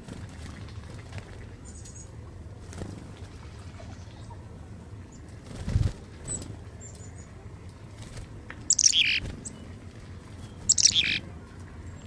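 Black-capped chickadees calling close by: faint, thin high notes now and then, and two louder, harsh calls about nine and eleven seconds in. A soft low thump comes near six seconds.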